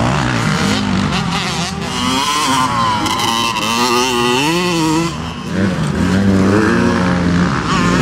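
Motocross motorcycle engines revving on a dirt track, their pitch rising and falling with the throttle. A short dip comes about five seconds in, before an engine picks up again.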